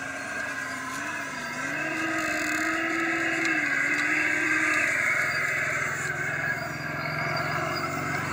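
Radio-controlled scale construction machines running, a mix of motor whine and engine noise, with a tone that wavers up and down in pitch for about five seconds and then drops away, over a steady low hum.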